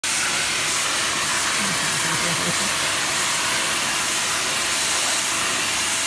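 Vacuum cleaner running steadily: an even, loud hiss of air rushing into the hose nozzle as it is run over a cat's fur.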